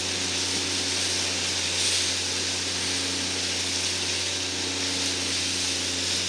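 A motorboat's engine running at a steady pitch under a constant hiss of wind and rushing water.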